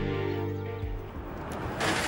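Background score music. A soft sustained cue fades out about a third of the way in, and a short rising swell of noise near the end leads into the next cue.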